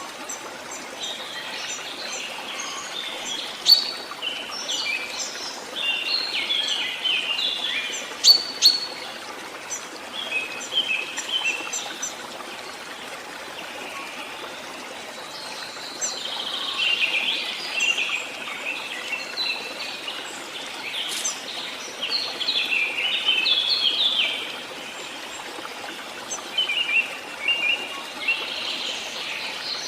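Songbirds singing in several bouts of quick, twittering chirps over a steady background hiss.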